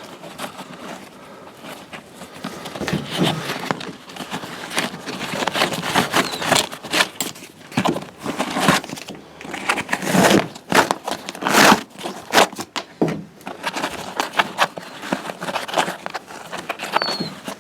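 Crinkling and rustling as a first aid kit is opened and its contents handled, in a run of irregular sharp crackles that are loudest around the middle.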